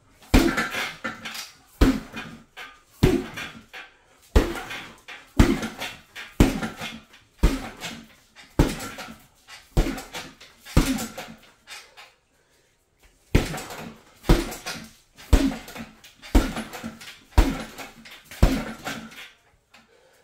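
Left hooks thrown with hand-wrapped fists into a hanging heavy punching bag: sharp thuds about once a second, each trailing off briefly, with a short break of a second or two midway before the punches resume.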